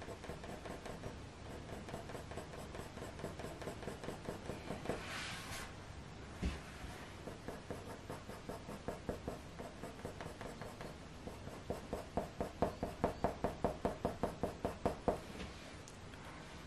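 Faber-Castell Polychromos coloured pencil shading on hot-press watercolour paper in quick, short, repeated strokes. The strokes become loudest and most regular, about four a second, from roughly twelve to fifteen seconds in. There is a single soft knock about six seconds in.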